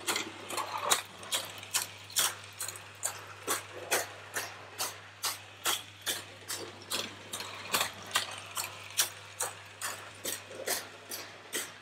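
Mamod SL1 live-steam toy locomotive running around a loop of track, with a steady rhythmic clicking of about three clicks a second.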